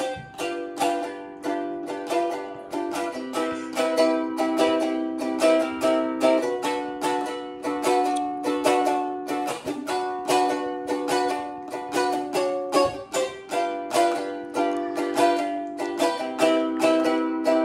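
Ukulele strummed in a steady rhythm, its chord changing about every three seconds.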